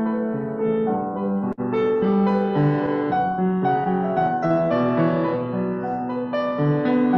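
Solo piano playing, a melody over held chords. The sound drops out for an instant about one and a half seconds in.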